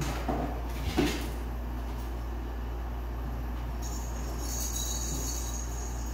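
A steady low hum, with a couple of soft knocks about a second in and a high jingling that starts about four seconds in.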